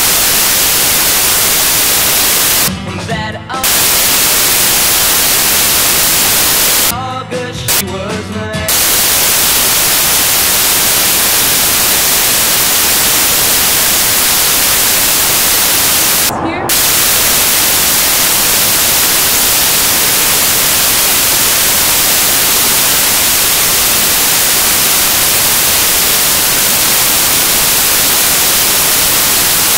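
Loud, steady static hiss, like white noise. It breaks off briefly about three seconds and about seven to eight seconds in, where a voice-like sound comes through for a moment, and dips once more near sixteen seconds.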